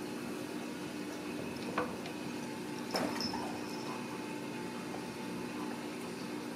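Steady low room hum with a few even tones, like an appliance or fan running, broken by two light knocks, one about two seconds in and one about three seconds in.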